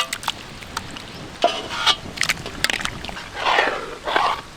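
Hot tempered masala being poured from a metal kadai into the turkey paya pot: scattered metal clinks and knocks of the pan, then two bursts of splashing and sloshing liquid near the end.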